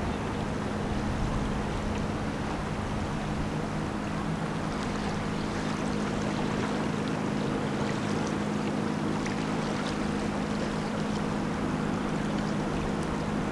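Steady low drone of a passing self-unloading lake freighter's engines: a constant hum with a few fixed tones and no change in pitch, over a steady hiss.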